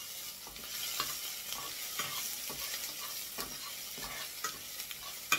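Chopped onion sizzling in hot oil in a frying pan while a spatula stirs and scrapes it around the pan, with a sharp clack near the end.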